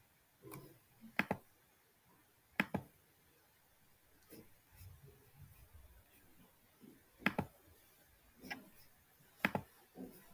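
Sparse clicks of a computer mouse, several coming in quick pairs, over quiet room tone.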